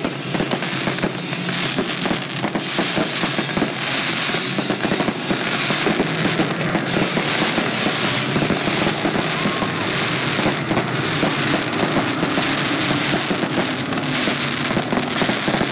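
Aerial fireworks going off in a continuous rapid crackle of many small reports, with no break.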